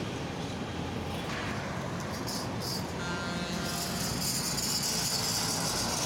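Road traffic: a truck drives past with engine rumble and tyre hiss, and more vehicles follow behind.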